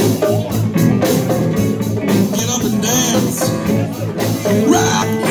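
Live rock band playing with electric guitars, bass guitar, a drum kit and congas, over a steady beat.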